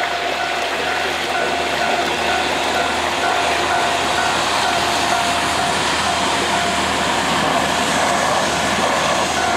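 Tobu 500 series Revaty electric limited-express train passing at speed, a steady rush of wheels on rail. Over it a level-crossing alarm rings in an even, repeating tone that fades about six seconds in.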